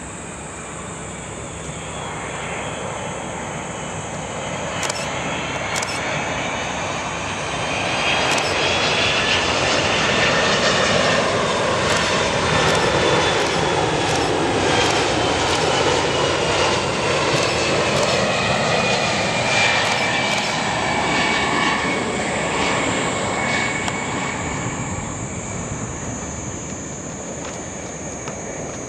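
Boeing 767-300ER jet airliner passing by under engine power: the engine noise builds, is loudest for several seconds in the middle, then fades, with the engines' whine sliding down in pitch as the jet goes past.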